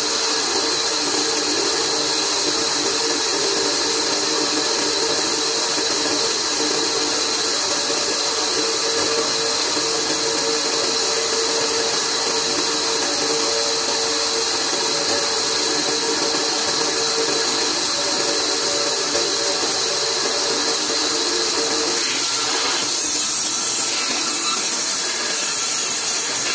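A large old bandsaw runs with a steady hum and a high hiss while its blade cuts a wooden plank being fed across the table.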